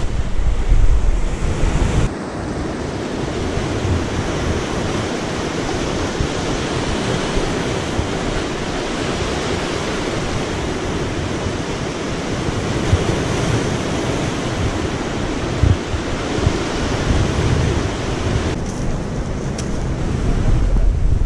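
Sea surf washing steadily onto a rocky shore, with wind buffeting the microphone in low rumbles during the first two seconds and again near the end.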